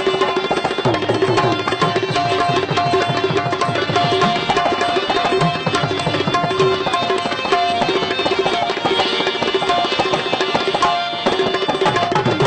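Instrumental music: tabla drumming under a melodic instrument playing a repeated figure of short held notes, with a brief break shortly before the end.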